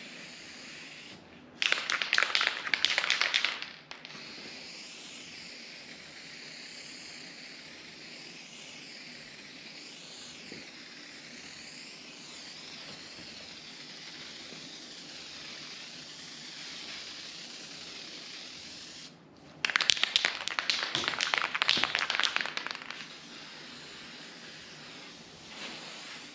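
Aerosol spray paint can spraying in two bursts, a short one early and a longer one past the middle, each a crackling, fluttering hiss. The sputter shows the can is running low on paint and nearly empty.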